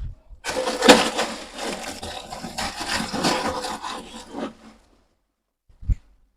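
Rough scraping and rustling of dry loose material for about four seconds, then a single low thump near the end.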